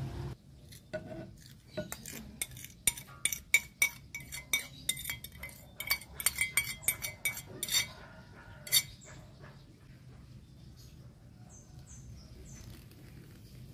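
Many quick, irregular clinks and knocks of a plate and kitchen utensil against a glass mixing bowl as mashed banana is scraped into cake batter, some with a short ring. About nine seconds in the clinking stops, leaving soft sounds of a silicone spatula folding the batter.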